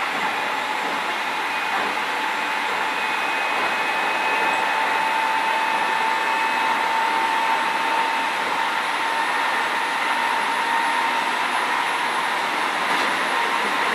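Keio 7000 series electric commuter train running at speed, heard from inside the passenger car: a steady rolling noise of wheels on rail with a thin steady whine over it.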